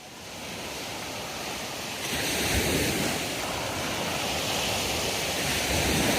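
Waves washing onto a beach, an even rushing noise that grows louder about two seconds in, with wind on the microphone.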